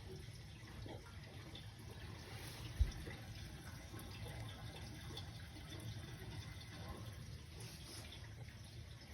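Hot-water boiler's circulating pump running with water moving and trickling through the piping, a low steady rumble, with one brief low thump about three seconds in.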